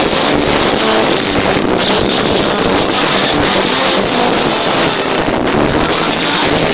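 Live church band and singers at full volume, recorded overloaded, so it comes through as a steady distorted wash with little clear tune.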